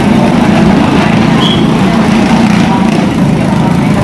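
Two motorcycles circling the wooden wall of a wall-of-death drum, their engines running loud and steady.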